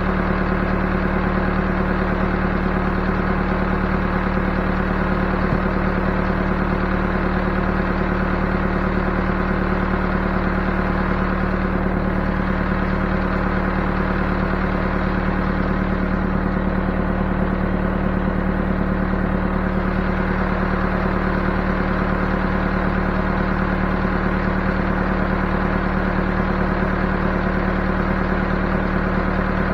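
Backhoe engine idling steadily at an even pitch, with no revving.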